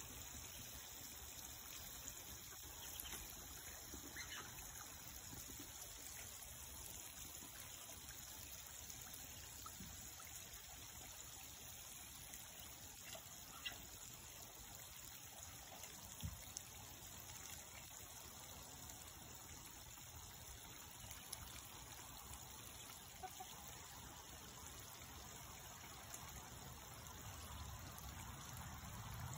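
Faint water sounds of Muscovy ducks and ducklings dabbling and wading in a shallow puddle, a steady light trickle with a few small clicks and splashes.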